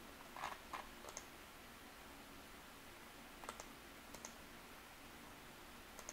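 Faint, nearly silent passing freight train of grain hopper cars, with a few short sharp clicks of car wheels crossing a rail joint. The clicks come in small groups about three seconds apart over a faint steady low hum.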